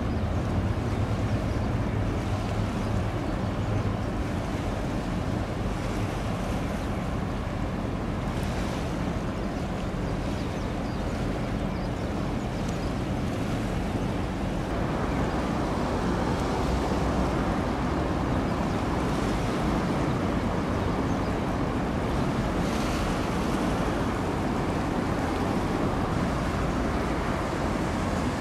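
A container ship under way: a low engine drone fades in the first few seconds, and a steady rush of water from its bow wave and wake grows louder about halfway through.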